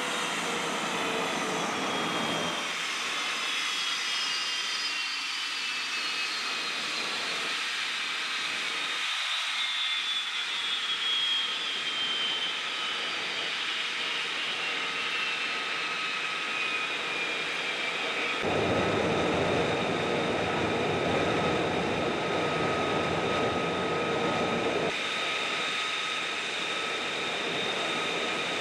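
Jet aircraft engine noise: a steady rushing hiss with high whining tones that slowly fall in pitch, and a steady high tone. About eighteen seconds in, a deeper rush of engine noise swells up for several seconds, then drops back.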